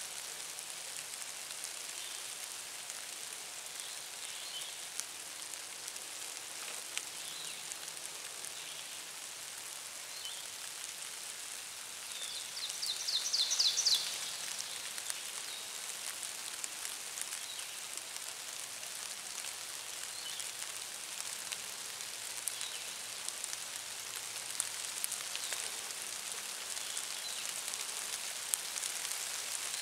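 Woodland ambience: a steady high hiss with scattered light ticks and faint bird chirps every few seconds. About thirteen seconds in, a songbird gives a loud, quick trill of rapid notes rising in pitch.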